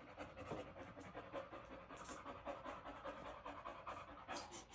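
Boxer bitch in labour panting rapidly and faintly, quick even breaths a few per second.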